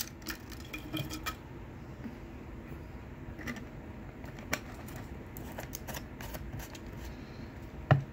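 Light clicks and scrapes of an empty plastic coffee bottle being handled and its screw cap twisted back on, with a sharper click near the end.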